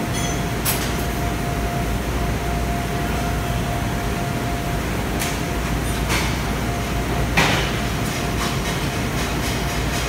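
Metal-shearing ironworker machine running with a steady low hum and a faint constant whine, with a few sharp snaps and clanks as its blade cuts metal, the loudest a little past seven seconds in.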